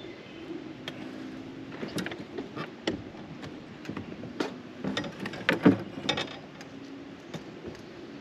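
Scattered clicks and knocks of fishing gear being handled in a small boat, loudest a little past the middle, over a low steady hum.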